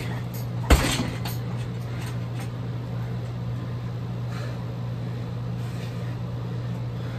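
A kick landing on a heavy bag with one sharp thud a little under a second in, followed by a few fainter knocks, over a steady low hum.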